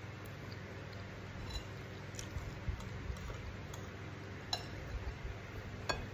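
Eating by hand from a ceramic plate: a few short, sharp clicks of fingers and food against the plate and of chewing, the loudest near the end, over a steady low hum.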